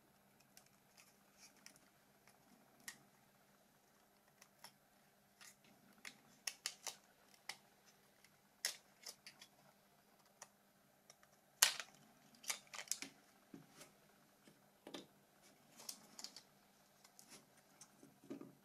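Scattered small plastic clicks and taps of a Nokia 2760 phone's body shell and parts being handled and pried apart by hand. The loudest click comes about two-thirds of the way through.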